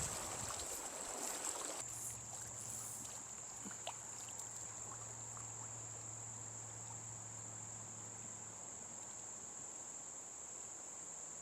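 Steady high-pitched chirring of insects, crickets by the sound, over the faint rush of the river, which is louder for the first couple of seconds before settling. A single small click about four seconds in.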